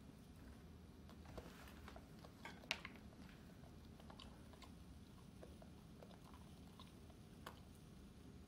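German Shepherd chewing a mouthful of food taken off a fork: a run of quiet crunches and clicks from about one to three seconds in, the loudest near three seconds, then a few softer ticks.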